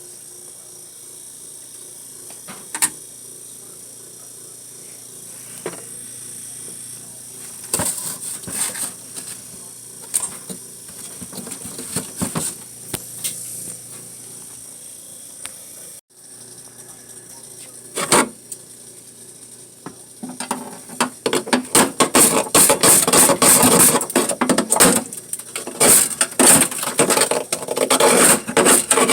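Ice and frost being chipped and scraped out of the freezer compartment of a 1960s Frigidaire refrigerator: scattered sharp knocks at first, then a dense run of rapid scraping and clattering strokes in the last third.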